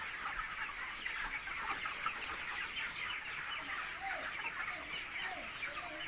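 A large flock of broiler chickens nearing harvest age clucking and peeping together, a dense, continuous chorus of overlapping short calls.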